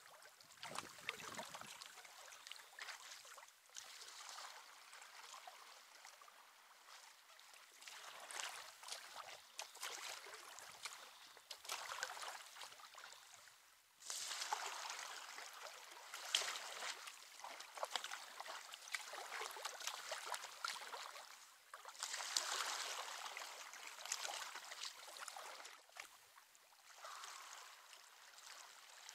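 Kayak paddle strokes in calm water: the blades dip, pull and splash, and water rushes along the hull, swelling and fading with each stroke about every two seconds.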